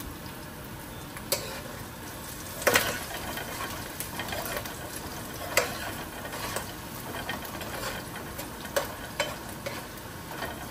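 Onions, garlic and pimento peppers sizzling steadily as they sauté in a pot, stirred so that the utensil knocks and scrapes against the pot about six times, loudest a little under 3 seconds in.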